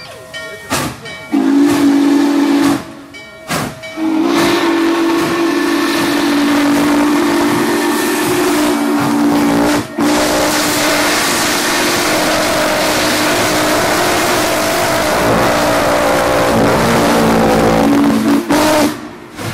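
Norfolk & Western Class J 611 steam locomotive's multi-note whistle: one blast, a short toot, then a long held blast that lasts most of the time. A loud hiss of steam comes in under it as the engine passes close by.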